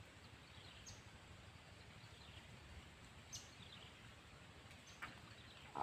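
Near silence: faint outdoor ambience with a few brief, faint high chirps.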